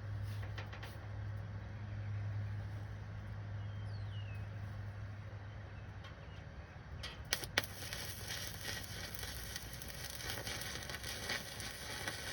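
A low steady hum for the first half. Then, about seven seconds in, a welding arc strikes with a couple of sharp snaps and crackles and sizzles continuously for about five seconds, a weld bead being laid on steel.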